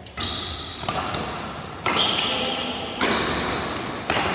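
Badminton rackets striking the shuttlecock in a fast doubles rally: a few sharp hits about a second apart, each echoing in a large indoor hall.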